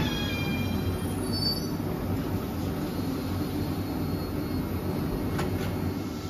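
Nancy TVR rubber-tyred guided tram close by: its electric drive whine falls in pitch and fades out over the first second and a half, leaving a steady low rumble from the vehicle, with a couple of faint clicks near the end.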